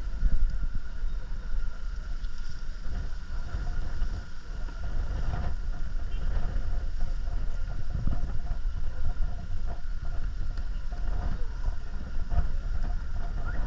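Wind buffeting the action camera's microphone: an uneven, continuous low rumble, with a faint steady high whine underneath.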